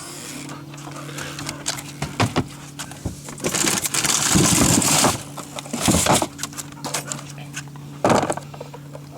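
A dog, a yellow Labrador, moving about amid scattered knocks and a longer rustling noise, over a steady low hum.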